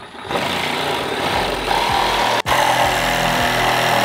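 Cordless Milwaukee FUEL power tool running at full speed, cutting through the plastic bumper support to make room for a larger intercooler. It starts just after the beginning, cuts out for an instant about two and a half seconds in, then runs on.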